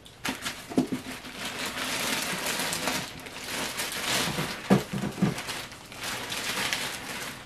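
Plastic wrapping crinkling and rustling as the clear plastic cleaning bucket of a resin wash-and-cure station is handled, with a few knocks of the plastic about five seconds in.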